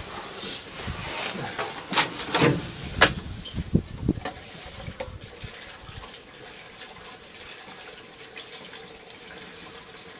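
Liquid being poured and splashing steadily, fuel going in during refuelling. A few sharp knocks and clunks of handling come in the first few seconds.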